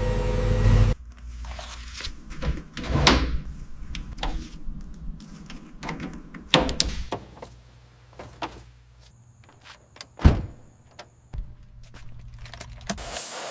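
Irregular knocks, thuds and clanks of car-restoration work, the sharpest hit about ten seconds in, with a loud low rumble in the first second.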